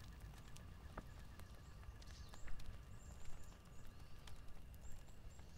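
Faint outdoor ambience: a steady low rumble with scattered light clicks and a few brief high chirps.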